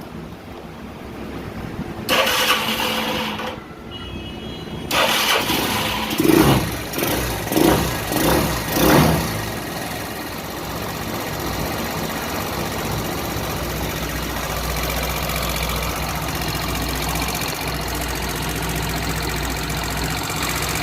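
Freshly repaired Chinese FS motorcycle engine restarted: a short burst of cranking about two seconds in, the engine catching a few seconds later, four quick revs, then a steady idle.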